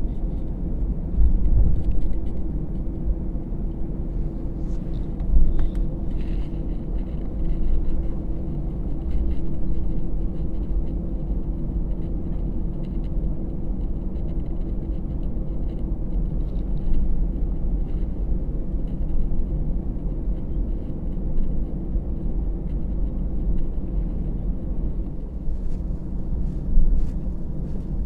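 Cabin sound of an Airbus A319 taxiing: its CFM56 engines running steadily at low taxi power, a steady low rumble with a constant hum over it and occasional small knocks.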